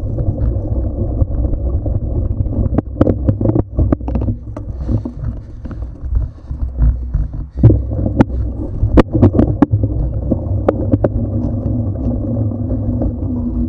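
Mountain bike rolling over rough grass and dirt with the camera on board: a steady rumble of wind and tyres with sharp knocks and rattles from the bike over bumps, bunched a few seconds in and again in the second half. Near the end the knocks stop and a steady low hum comes in as the knobby tyres run on smooth asphalt.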